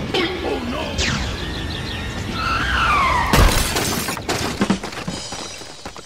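Dubbed cartoon sound effects over background music: whistle-like tones slide up and down, then a loud crash with shattering about three and a half seconds in, followed by a few smaller knocks, for a train hitting a tractor on the track.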